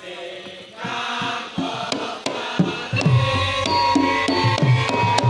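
Javanese gamelan music for a masked dance: a few scattered drum strokes, then about two and a half seconds in the full ensemble comes in with a steady drum beat under sustained pitched notes.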